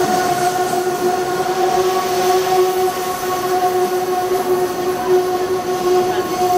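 Amtrak Northeast Regional passenger cars rolling past at slow speed as the train pulls into the station, with a steady pitched hum held over the rumble of the train.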